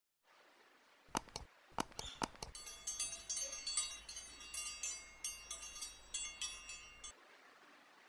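Subscribe-button sound effect: several sharp mouse clicks, then a small notification bell ringing in quick repeated strikes for about four and a half seconds. The ringing cuts off suddenly.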